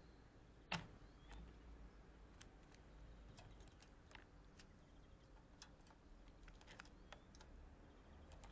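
Faint, scattered clicks and taps of a jackdaw's beak and claws on a plastic dog puzzle feeder as it pecks at the sliding compartments, with one sharper click about a second in.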